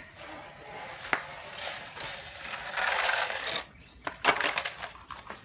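Hard plastic toy trucks knocking and scraping on sandy ground, with a cluster of sharp clacks a little after four seconds as a toy excavator is put down among them.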